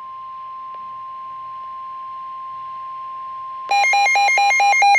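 Emergency Alert System alert tones for a severe thunderstorm warning: a steady single-pitch beep tone, then about three and a half seconds in a much louder, rapidly pulsing warble of alternating pitches starts and takes over.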